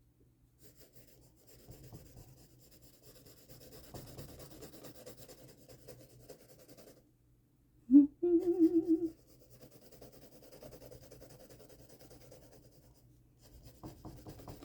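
Graphite pencil scratching and rubbing across paper in faint stretches, with a short, loud hum about eight seconds in.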